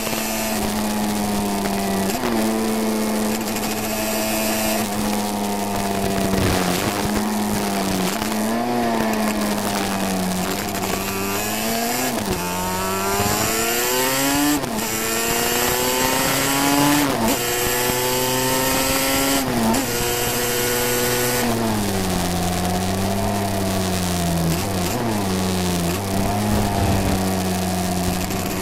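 350cc classic racing motorcycle engine at race pace, heard from onboard. Its pitch repeatedly climbs and then drops suddenly at each gear change, and sags lower in a few stretches, over steady wind noise. The recording crackles throughout, which the uploader puts down to moisture in the camera.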